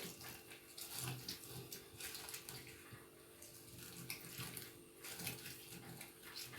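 Lemons being juiced: faint irregular squishing and juice trickling.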